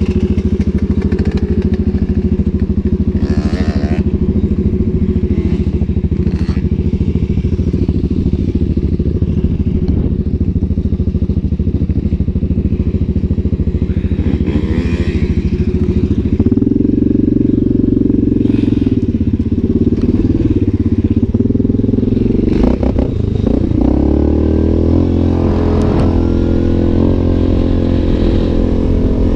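Yamaha Grizzly 700 quad's single-cylinder four-stroke engine running under way, heard from on the machine. The engine note changes about halfway through and rises near the end as it speeds up.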